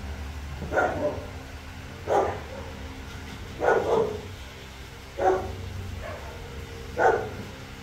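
Young puppy barking: five short, high yapping barks spaced about a second and a half apart, the middle one doubled.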